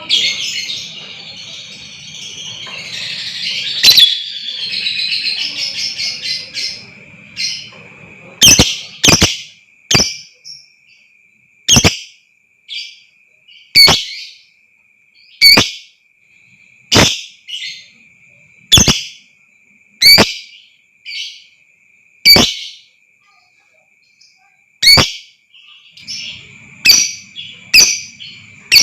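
Lovebirds calling: loud, sharp shrieks repeated every one to two seconds over a steady high-pitched chatter, with a busier stretch of chattering in the first few seconds.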